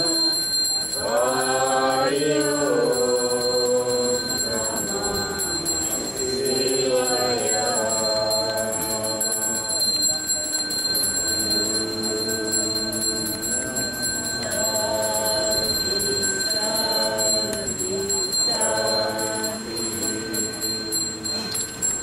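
Slow Balinese devotional chanting by voices singing long held, gliding notes, over a hand bell ringing continuously.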